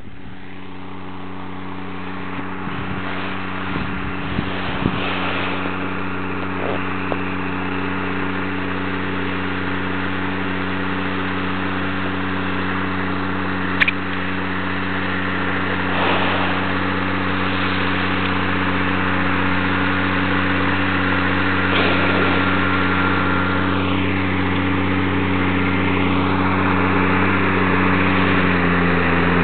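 New Holland tractor's diesel engine running steadily as it pulls an implement across the field, growing gradually louder as it approaches. The engine note drops slightly near the end.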